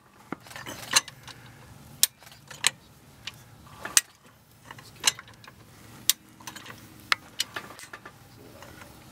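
Hi-Lift jack being pumped to lift a vehicle by its wheel: the steel climbing pins snap into the holes of the perforated bar with sharp metallic clacks, coming irregularly about once or twice a second with each stroke of the handle.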